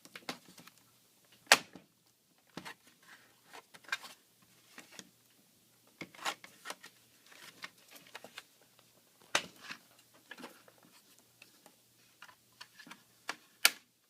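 Irregular sharp plastic clicks and snaps from a Dell Inspiron 15z laptop's palm rest, as its clips are pried loose and the case is handled, with three louder snaps scattered through.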